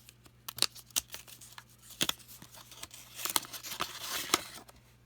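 Trading cards and their pack wrapper being handled: a run of sharp flicks and clicks as cards are sorted. From about three seconds in there is a stretch of crinkling and tearing from a wrapper, which stops shortly before the end.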